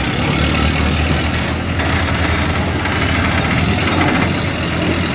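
Heavy diesel engines running steadily with a deep low hum, as mobile cranes pull a loaded lorry stuck in mud.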